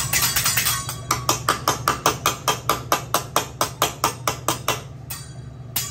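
A hibachi chef's metal spatula and knife clacking together and on the steel griddle in a quick, even rhythm of about five strikes a second, stopping about five seconds in, over a steady low hum.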